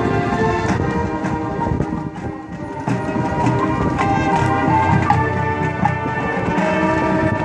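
High school marching band playing its field show: brass sustaining chords over drumline percussion, easing off for a moment about two seconds in before the full band comes back in.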